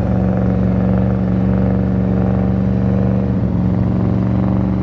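Porsche Cayenne Turbo S twin-turbo V8 running at a steady, unchanging pitch under heavy load as the SUV tows an Airbus A380 airliner.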